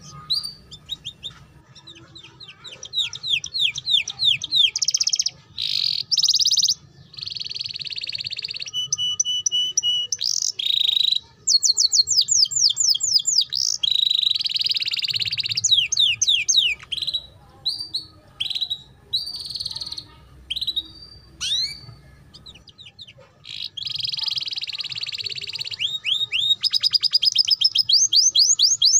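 Domestic canary singing a long, fast song of rapid sweeping trills and buzzy rolls, broken by short pauses and a pair of clear whistled notes about nine seconds in. It is the chattering, rapid-fire style that Indonesian canary keepers call ngeriwik, played as a master song to coax young canaries into singing.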